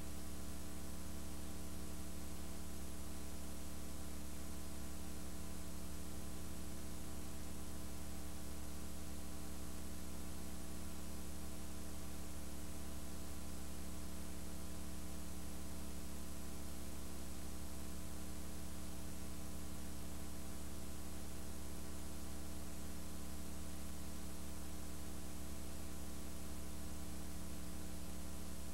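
Steady electrical mains hum with a layer of hiss, unchanging throughout, with no other sound standing out.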